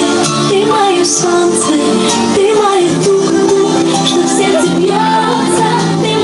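Music: a song with a singing voice over held accompaniment and light percussion.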